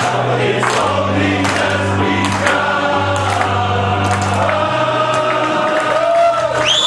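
Welsh male voice choir singing in parts, holding long chords over a deep bass line. Right at the end a shrill whistle rises sharply and holds.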